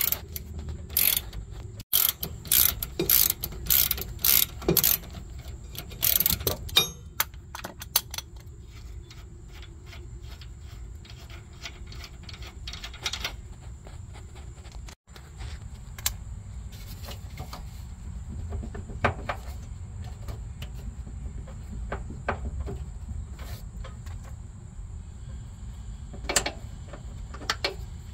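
Ratchet wrench clicking as a bolt on the rear suspension arm is turned, in quick runs of clicks for the first several seconds and then only occasional single clicks.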